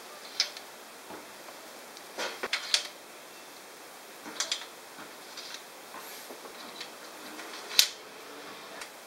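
Scattered metallic clicks and clinks of hand tools and valvetrain parts being handled while pushrods and rocker arms are fitted on a cylinder head. There is a short cluster of clinks a little past two seconds in and a single sharp, louder clink near the end.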